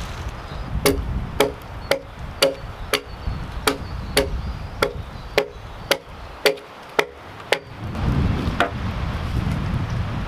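Hatchet chopping into wood in quick, even strokes, about two a second, some fourteen blows in all, each a sharp crack with a short ring. The strokes stop near the end, leaving a low rumble.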